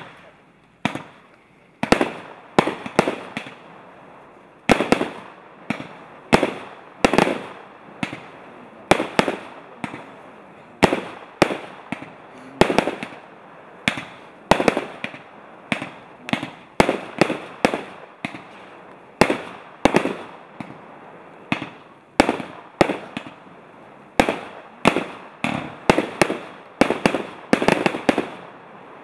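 Prevot JW4000 firework compact (cake battery) firing its shots in sequence: sharp launch and burst bangs, about two a second.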